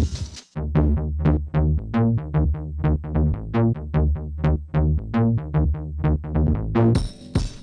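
Electronic music: a fast sequence of short plucked synth notes, about four to five a second, over a heavy bass line. Near the end it switches to a drum loop.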